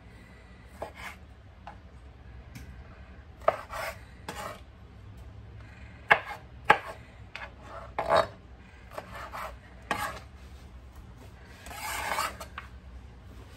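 Hand food preparation for a salad: irregular knocks and rasping scrapes on a kitchen work surface, with a few sharp clicks and a longer scrape near the end.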